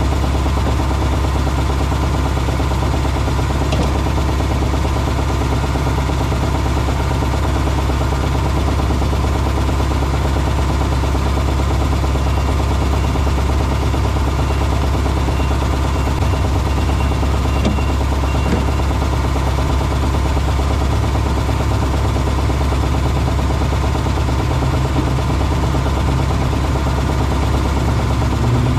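A motor running steadily: a low, even drone that holds the same pitch and level throughout.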